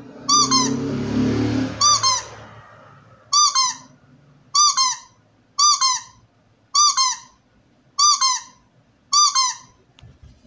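Squeaky dog toy, a recording, giving a double squeak about once a second in identical repeats. A muffled noisy rumble lies under the first two seconds.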